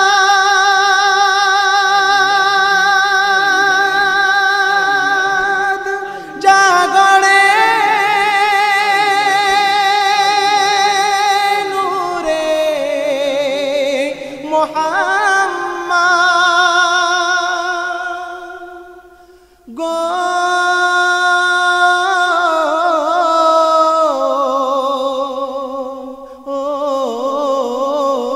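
A Bengali Islamic ghazal sung in long held notes with a quick vibrato, the phrases stepping down in pitch. The singing fades out about two-thirds through and starts again a second later.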